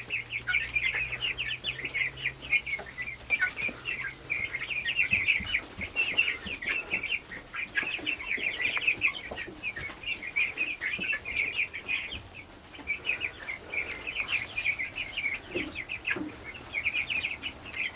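A flock of three-week-old Cornish Cross meat chicks peeping, many short high chirps overlapping without a break.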